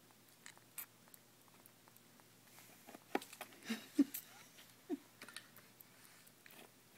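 Small scattered clicks and rustles of a baby squirrel suckling at a milk syringe and being shifted about in the hands and on a blanket, busiest in the middle with a cluster of louder knocks and scuffs.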